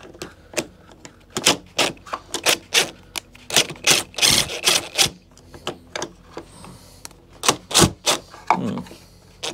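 Cordless DeWalt 18 V XR impact driver hammering in short bursts on a bolt through a steel mower deck, with sharp metal clicks between bursts; the nut is held by a 13 mm spanner so the bolt can be undone. The longest burst comes about four seconds in, and another near the end.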